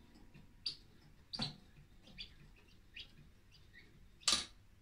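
19th-century French singing bird automaton giving about five short, separate chirps, the last and loudest near the end.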